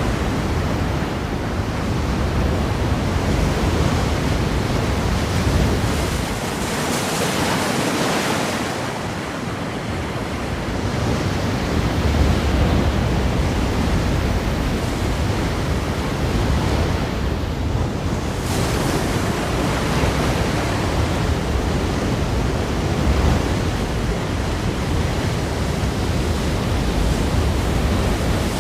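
Ocean surf: waves breaking against rocks in a continuous wash with a deep rumble, swelling with a brighter hiss about a quarter of the way in and again past halfway.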